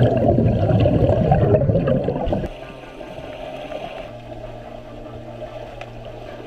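Water churning and bubbling, heard underwater as a swimmer swims front crawl past the camera. It is loud for about the first two and a half seconds, then settles to a quieter wash with a low, steady hum.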